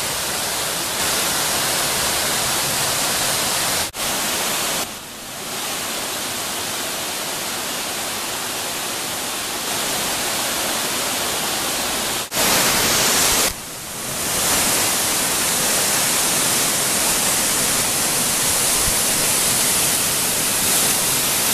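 Waterfalls in a narrow rock gorge, a steady dense hiss of rushing, falling water. It drops off and comes back at a different loudness suddenly several times, about 4, 12 and 13 seconds in.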